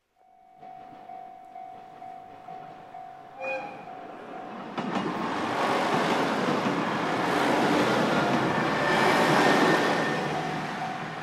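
Japanese level-crossing bell ringing in a steady repeated beat. About three and a half seconds in there is a short train horn blast, then a passenger train rumbles across the crossing, loudest near the end, with the bell still ringing.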